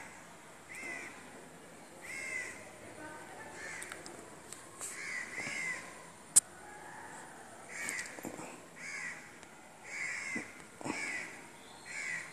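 Crows cawing repeatedly, a dozen or so short caws at irregular intervals about a second apart, with one sharp click about six seconds in.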